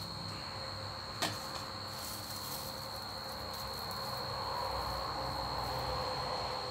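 A steady high-pitched insect trill runs throughout, while metal tongs give one sharp click about a second in and crisp fried holy basil leaves rustle as they are lifted onto the plate in the second half.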